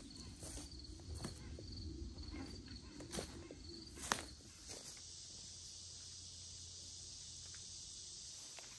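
Faint footsteps on a woodland trail, a few scattered steps, with an insect chirping in quick high pulses through the first half. A steady high hiss fills the second half.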